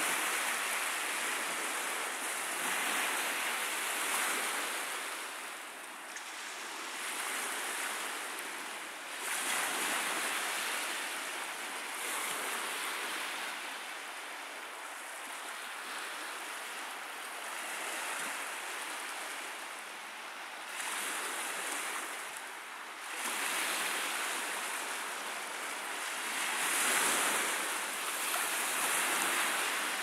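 Ocean surf breaking and washing ashore, a steady hiss that swells and eases every few seconds.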